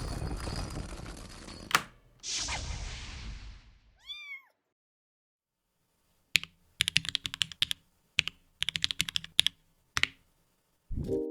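Two bursts of rushing noise with a sharp click between them, then a single short cat meow about four seconds in, followed by clusters of rapid clicking from a mechanical keyboard being typed on, with Cherry MX Red switches.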